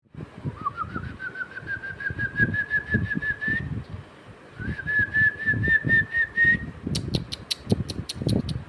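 A dog digging in dry sand, its paws scraping in rough, quick strokes, with sharp clicks coming about three a second near the end. Over it a bird calls twice, each call a run of short chirps climbing steadily in pitch and lasting a few seconds.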